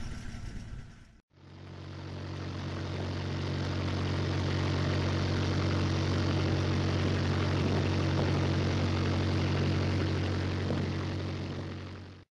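Boat engine running steadily under way: a constant low hum with the rush of water alongside the hull. It fades in after a brief cut about a second in and stops just before the end.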